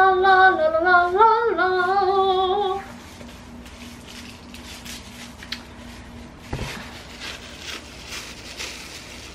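A woman's voice humming a short sung phrase for about three seconds. It gives way to quieter rustling and light clicks, with one sharper knock about six and a half seconds in.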